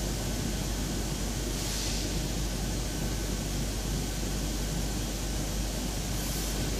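Steady running noise of a particleboard/OSB mechanical mat-forming line, an even rushing hum with a low rumble underneath.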